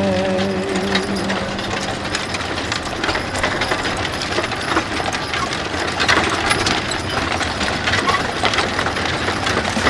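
Horse-drawn chuck wagons passing on a paved road: hooves clip-clopping and wooden wagons rattling, heard as irregular knocks and clicks over a steady noise. The last sung note of a song dies away about a second in.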